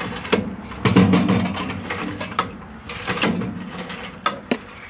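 Recoil pull starter of a Champion wood chipper's small gas engine being drawn out slowly, fitted with a coated steel-cable pull cord, its ratchet clicking and rattling through a series of short tugs as the starter is worked to the right spot before a start.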